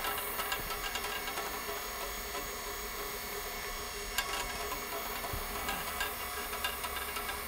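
Rotary floor buffer running with a 100-grit sanding screen, scuff-sanding a cured epoxy floor to knock down burrs before the top coat; a steady sound.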